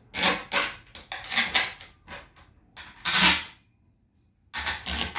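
Handling noise from the wooden subwoofer box and its cover: a string of short knocks and scrapes, with a brief pause near the end.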